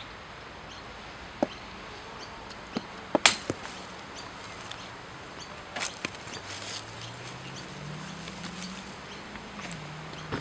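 Cricket bat striking a ball in the nets: one sharp crack just after three seconds, with a few lighter knocks around it and another near six seconds. A low hum comes in for the second half.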